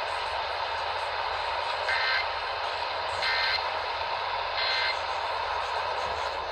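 Emergency Alert System end-of-message signal received over the radio: three short bursts of two-tone digital data, evenly spaced, over steady radio hiss.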